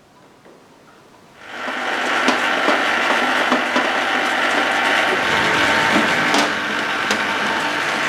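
A small motorised tool starts about a second and a half in and runs steadily, with scattered clicks and rattles over it.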